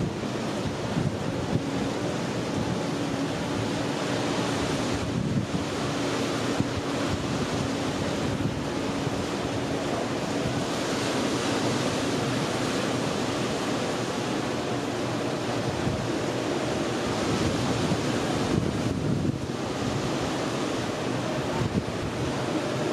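Sea waves washing against a rocky shore, mixed with wind rumbling on the microphone. A faint steady hum lies under the noise for several seconds in the first half.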